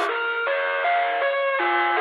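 Intro music: a melody of held notes that step to a new pitch about every half second.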